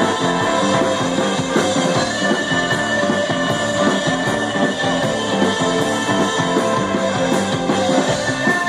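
Live rock band playing electric guitars and bass guitar, loud and continuous, over a steady beat.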